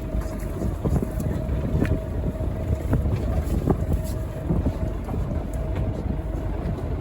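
Fishing boat's engine running steadily with a low rumble and a faint steady whine, while wind buffets the microphone and a few light knocks sound on board.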